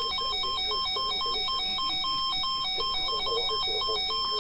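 Electronic weather-alert tone: rapid beeps that alternate between two pitches in a repeating pattern, over a steady high tone. It heralds a newly issued severe thunderstorm warning.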